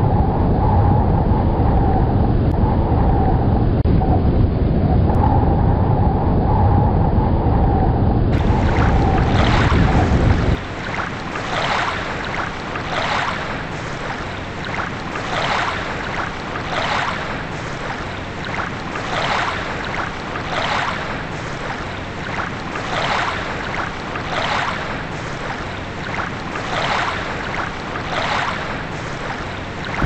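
Added nature sound effects: a loud, deep storm-like rumble. About ten seconds in it cuts abruptly to a quieter water sound of waves washing in, with swells coming a little more often than once a second.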